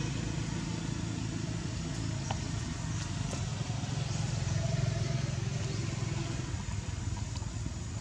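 Steady low engine rumble, as of a motor vehicle running, with a few faint high ticks and chirps over it.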